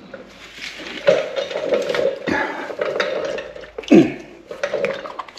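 Radiator coolant running from the drain valve into a container in a steady stream, with a few knocks of the container being handled.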